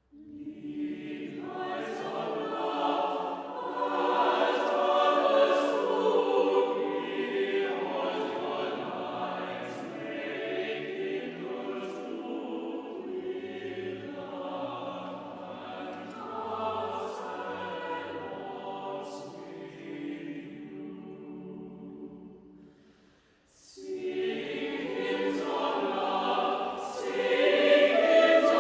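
Choir singing sustained, several-voice chords; the singing drops away almost to nothing about three-quarters of the way through, then starts again.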